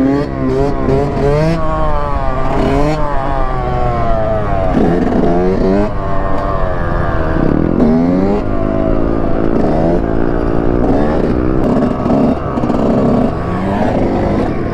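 2006 Yamaha YZ125 two-stroke dirt bike engine, heard from on the bike, revving up and dropping back again and again as it is ridden.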